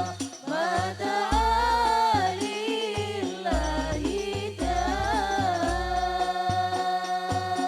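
Islamic devotional song sung by a voice with a wavering, ornamented melody and vibrato, over instrumental backing with a steady low bass line.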